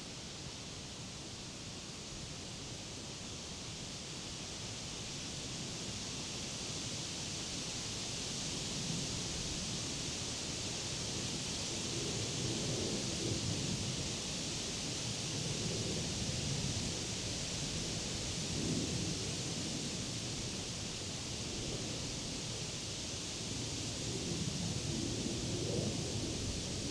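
Wind in leafy summer trees: a steady rustling hiss of leaves that swells in gusts from about a third of the way in, the stronger gusts bringing low rumbles.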